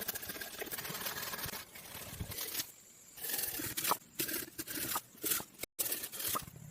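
Irregular scraping and tearing noises in short bursts, with a few sharp strokes, as of material being cut or worked by hand.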